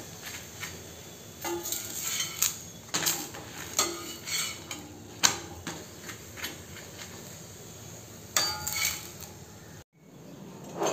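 Steel spatula knocking and scraping against an iron tawa as it presses a chapati, a quick run of metallic clinks and scrapes for a few seconds, then another short burst near the end.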